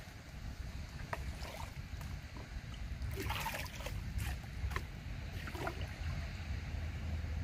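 Water splashing and sloshing as a plastic basin is dipped into a river and filled, busiest about three to four seconds in, over a steady low rumble.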